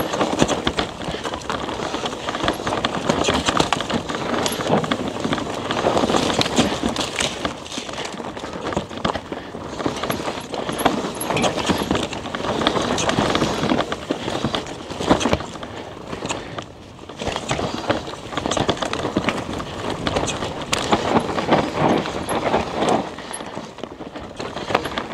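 Chainless Rocky Mountain Altitude PowerPlay e-mountain bike coasting down a dusty, loose dirt singletrack: tyres crunching over the dirt, with frequent rattles and knocks from the bike over bumps and roots.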